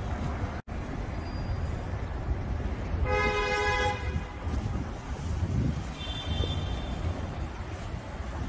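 Steady low rumble of city street traffic and wind on the microphone, with a car horn honking once for about a second midway. All sound drops out for an instant just after the start.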